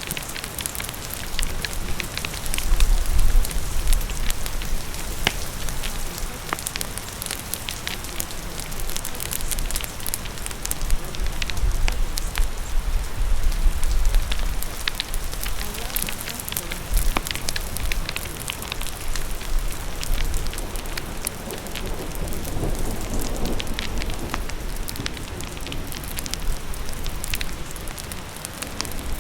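Steady rain hissing alongside a crackling fire, its sharp pops and snaps scattered all through. A low rumble swells up twice underneath.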